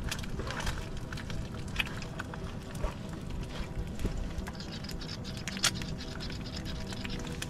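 Small metal spice canisters clicking and clinking as they are handled. From about halfway in, a shaker rattles as seasoning is sprinkled into a pot. Soft background music with a steady drone plays underneath.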